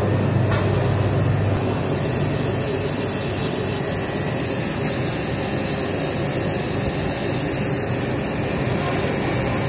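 Rico Italy RI-S6 pressure washer running steadily while its spray gun jets water, a steady hiss of spray over the machine's drone. A low hum is strongest for the first second or so, then eases.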